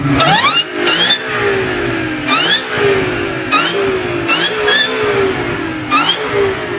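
Supercharged car engine blipped about six times in quick succession. Each rev brings a high supercharger whine that rises in pitch, then falls away as the revs drop back.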